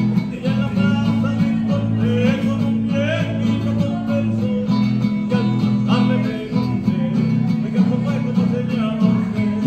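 Acoustic guitar played live by a solo performer and amplified through a small speaker, with steady low bass notes under the melody.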